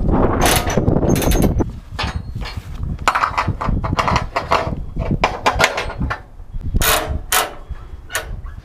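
Metal strap hooks clinking and knocking against the perforated steel deck of a car-hauler trailer as a wheel strap is fitted around a pickup tire: a run of sharp, separate clicks and knocks. A low rumble fills the first second or two.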